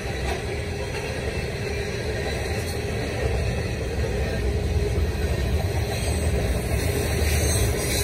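Freight train cars, covered hoppers and then tank cars, rolling past over a level crossing with a steady rumble of wheels on rail, heard from inside a stopped car.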